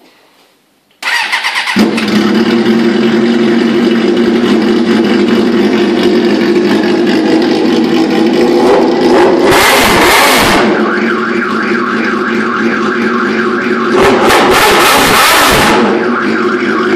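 Suzuki 600 motorcycle's inline-four engine starting on the electric starter about a second in, catching almost at once and settling into a steady idle. It is revved twice with throttle blips, about halfway through and again near the end.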